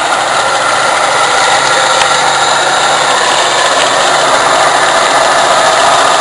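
A motor or engine running steadily and loudly close by.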